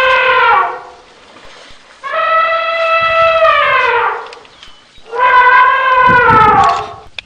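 Elephant trumpeting: a call trailing off at the start, then two long, brassy calls of about two seconds each, each dropping in pitch at the end.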